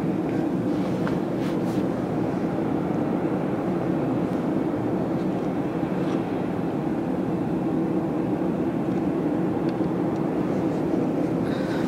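Steady mechanical drone of a parked Airbus A320 airliner and its ground service equipment at the stand, even in loudness throughout, with a few faint short ticks.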